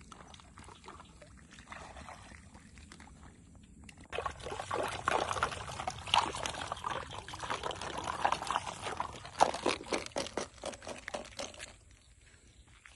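Snails being rinsed in a wicker basket dipped in shallow lake water: water sloshing and pouring through the basket's weave as a hand stirs the snails, starting about four seconds in and stopping near the end.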